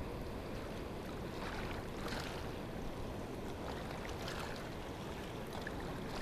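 Steady rushing of a fast-running river below an open dam, the water high.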